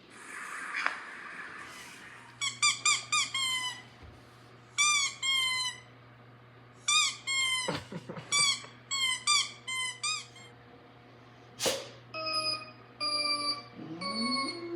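Played-back sound effects: clusters of short, high squeaks, each falling in pitch, coming in quick runs of four or five, followed near the end by a few short steady electronic beeps and a rising tone.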